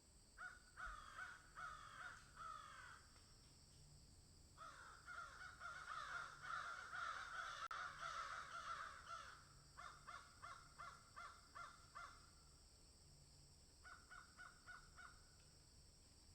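Birds calling in quick runs of short, repeated, downward-sliding notes. The runs come at the start, in the middle, where several overlap into a dense chorus, again just after the middle, and once more near the end. A steady high hiss lies under them.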